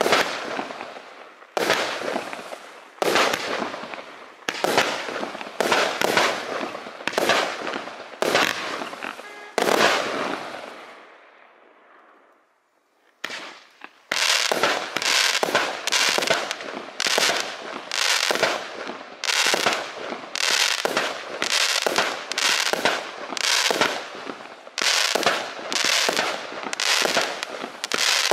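A 120-shot, 25 mm compound firework cake firing: shots about every second and a half, each with a long fading tail. It falls briefly to near silence around the middle, then the next section fires faster, about two shots a second.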